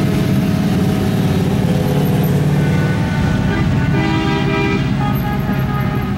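Motorcycle engines running as the bikes pass close by. From about four seconds in, a vehicle horn sounds steady tones over the engine noise.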